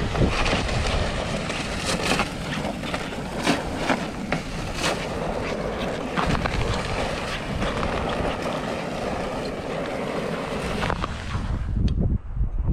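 Footsteps crunching on snowy lake ice and a loaded ice-fishing sled scraping along behind, with wind buffeting the microphone.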